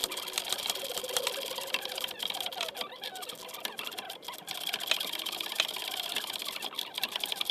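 Ratchet wrench clicking rapidly and steadily as it runs in the bolt of the lower control arm's rear mount.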